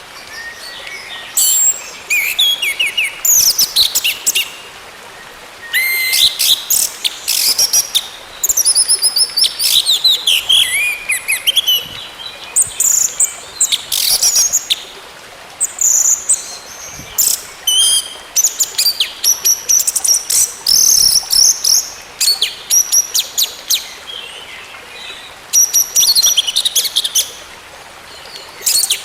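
Orange-headed thrush singing in bouts of rapid, varied high-pitched phrases, separated by short pauses.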